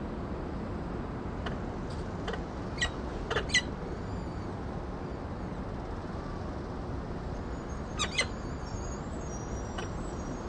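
Peregrine falcons at the nest during a feeding: short, sharp high chirps in two clusters, a few between about one and four seconds in and two more about eight seconds in, with faint thin high peeps after them, over a steady hiss from the nest camera's microphone.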